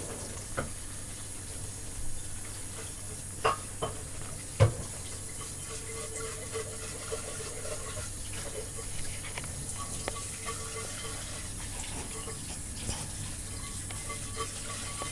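A Cavalier King Charles Spaniel's noisy, wheezy snorting breaths during an episode the owner wonders is reverse sneezing, with a few sharp clicks about three and a half to four and a half seconds in, the last the loudest.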